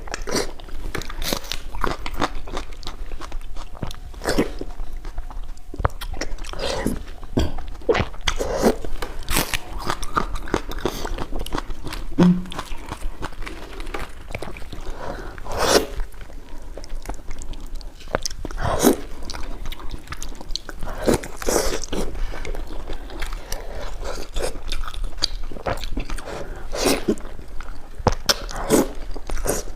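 Someone eating crunchy food close to the microphone: biting and chewing, with irregular sharp crunches every second or so.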